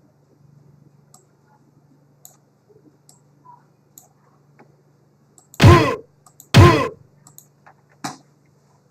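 Computer mouse clicking now and then, with two loud short bursts about a second apart near two-thirds of the way through: sound effects played back during editing.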